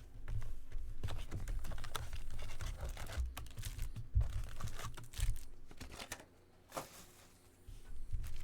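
Plastic wrap crinkling and tearing, with quick taps and knocks, as a sealed box of trading cards is handled and unwrapped. The sound goes quieter for a couple of seconds near the end.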